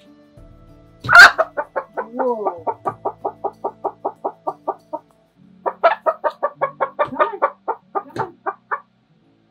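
A hen gives a loud squawk about a second in, then cackles in rapid repeated clucks, about five a second, in two runs with a short break in the middle: the alarm cackle of a frightened hen being approached.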